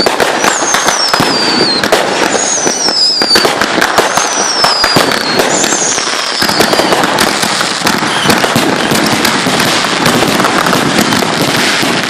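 Consumer fireworks going off in a dense run of crackles and bangs. Over the first half, a series of whistles each fall in pitch, about one every second and a half.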